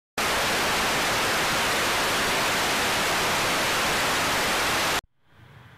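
Loud, steady hiss of static noise that starts abruptly and cuts off suddenly about five seconds in, leaving faint room tone.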